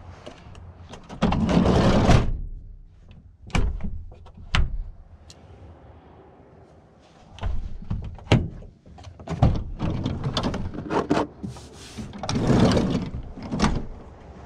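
Side door of a Citroën Berlingo van being worked by hand. It slides along its track in several roughly one-second swishes, with sharp clicks and thunks of the latch and door fittings in between.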